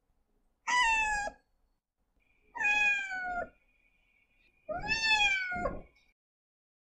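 Cat meowing: three short high-pitched meows about two seconds apart, each falling slightly in pitch.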